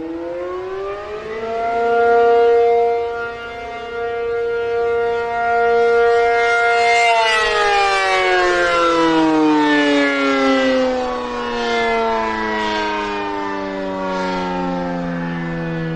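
ACA P-50 outdoor warning siren sounding an Attack signal, its pitch rising over the first two seconds, holding steady, then sliding slowly down from about seven seconds in. Its loudness swells and dips along the way.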